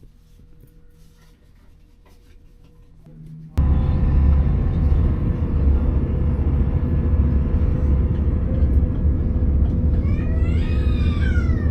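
A loud, steady low rumble of a vehicle in motion cuts in abruptly about three and a half seconds in, after a quiet stretch. Near the end a short high, wavering call rises and falls over the rumble.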